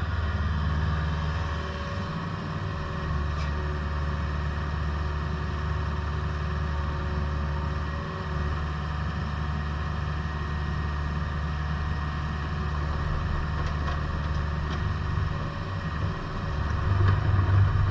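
Volvo EC55C midi excavator's diesel engine running steadily, growing louder near the end.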